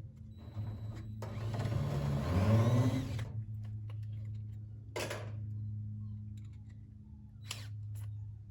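Power drill driving a screw to fasten PVC pipe gutter, its motor running for about two seconds with the pitch rising and bending, then short knocks a few seconds later. A steady low hum runs underneath.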